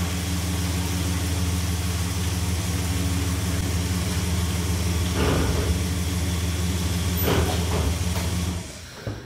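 Dodge Ram 1500 pickup's engine running at a steady idle as the truck creeps forward, then shut off near the end.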